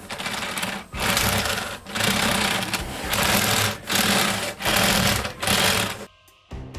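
Plastic track links of a brick-built COBI tank model clattering as the model is pushed back and forth across a table under hand pressure, in about seven strokes of under a second each.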